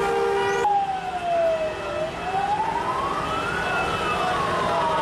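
A steady vehicle horn blast that cuts off under a second in, followed by a siren wailing slowly: falling, rising to a high peak, then falling again.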